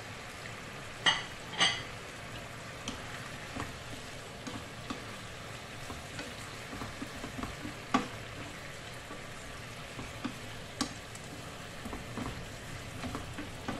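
Thin-sliced pork and red bell pepper sizzling in a frying pan while being stirred and scraped with a wooden spatula, with small taps of the utensil against the pan. Two louder knocks with a short ring come about a second in, and single sharp clicks later on.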